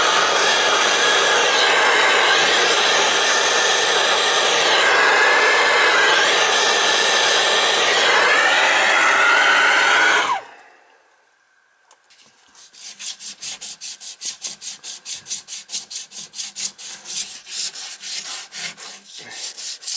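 A loud, steady machine noise with wavering pitch cuts off suddenly about ten seconds in. After a short pause, even back-and-forth rubbing strokes start, about three a second, typical of copper pipe being scrubbed clean with abrasive cloth before soldering.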